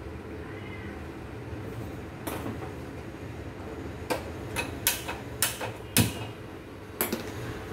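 Gas stove burner being lit: a string of sharp igniter clicks as the knob is turned, the loudest about six seconds in as the burner catches, with one more click near the end.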